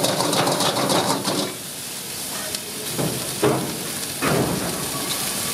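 Food sizzling and hissing in a hot metal cooking pan. Dense scraping and stirring clicks fill the first second and a half, and a few sharp knocks of a metal ladle on the pan come around the middle.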